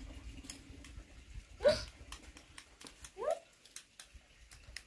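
Two short animal cries, each sliding quickly in pitch; the first, about a second and a half in, is the louder, and the second follows about a second and a half later.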